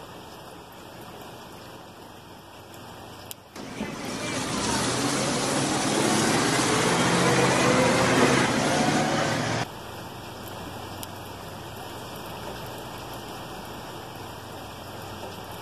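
A large vehicle rushing past close by, a loud roar with sliding tones in it that starts and cuts off abruptly, around a few seconds in and again near the middle. Faint steady background hiss before and after.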